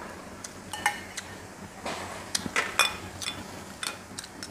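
Metal spoon clinking against glass dishes while scooping food, a series of light clinks, some with a brief ring.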